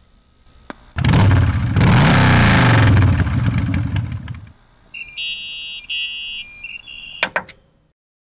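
An engine revs hard for about three seconds, its pitch rising and then falling, and dies away. It is followed by two short runs of electronic beeping and a couple of sharp clicks.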